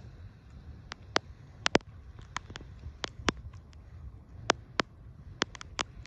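Mute swans dabbling bird seed off the water surface, their bills making irregular sharp clicks and smacks, some in quick pairs, over a low rumble.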